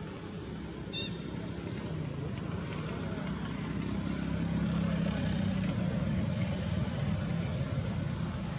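Low engine hum of a motor vehicle, swelling to its loudest past the middle and then easing off, as if passing at a distance. A short high chirp comes about a second in, and a thin high whistle about four seconds in.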